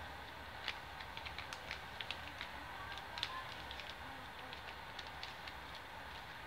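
A sheet of paper crackling and rustling as it is folded and creased by hand: a run of small crisp clicks in the first half, the sharpest about three seconds in, then fewer. A steady low hiss lies under it.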